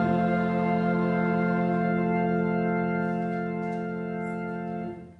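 Church organ holding the final chord of a hymn, steady and unchanging, then cutting off about five seconds in.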